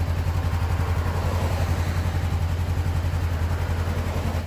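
Honda CBR500R's 471 cc parallel-twin engine idling steadily through its stock exhaust: a deep, evenly pulsing note with strong bass.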